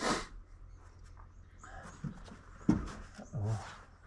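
Hand work in a tractor engine bay with the engine off: scattered knocks, clicks and rustles of parts and clothing being handled, with a man's heavy breathing.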